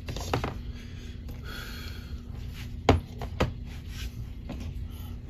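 Plastic action figures being handled and moved off a display floor: a few sharp clicks and knocks, the loudest about three seconds in, with light rubbing in between.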